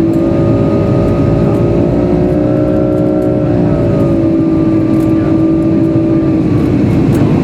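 Boeing 757-300 jet engines running, heard from inside the cabin as a steady hum over a heavy rumble while the airliner rolls on the ground after landing. The hum sags slightly in pitch about three seconds in.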